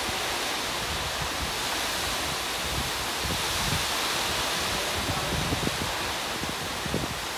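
Rain falling in a steady hiss, with faint wind buffeting on the microphone.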